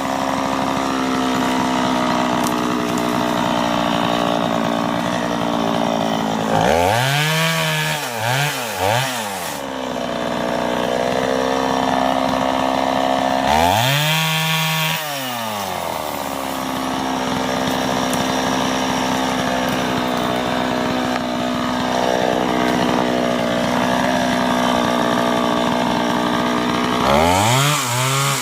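Two-stroke chainsaw running steadily, revved up and let back down in quick bursts: three short revs about a quarter of the way in, one near the middle, and more near the end.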